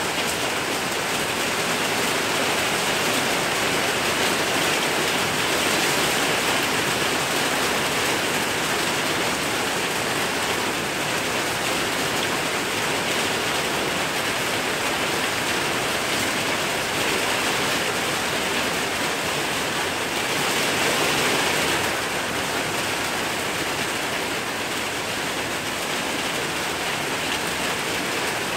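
Heavy rain pouring down in a steady, dense hiss, swelling slightly about three-quarters of the way through.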